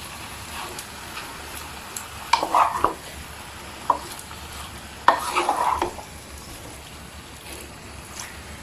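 Marinated chicken pieces being stirred with a spoon in a kadai, with two louder scraping strokes, about two and a half and five seconds in, over a steady low sizzle as the chicken cooks in its own released juices.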